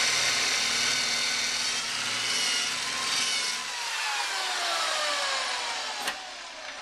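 Corded electric drill with a half-inch masonry bit boring into brick, the bit grinding at full speed. About three and a half seconds in the drill is pulled free and the motor winds down with a falling whine, and a sharp click follows near the end.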